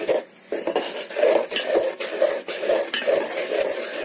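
Metal spatula stirring rice flour into thick cooked jaggery syrup in a metal pot, scraping and knocking against the pot about twice a second.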